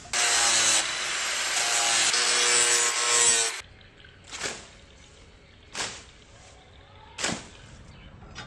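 Red-hot forged steel knife blade quenched in a water trough, a loud sizzling hiss of steam for about three and a half seconds. Then three quick swishes as the blade slices through grass and weeds.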